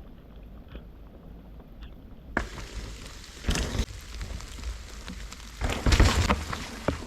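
Mountain bike riding on a wet trail: a rushing noise of tyres and wind on the microphone starts suddenly a couple of seconds in, with two loud heavy rumbling thumps, the louder one near the end.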